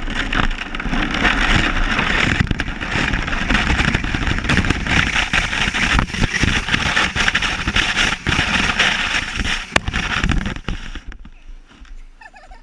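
Sled sliding downhill over crusty snow and dry grass, heard close up: a loud, continuous scraping hiss broken by knocks from bumps. It stops about eleven seconds in as the sled comes to rest.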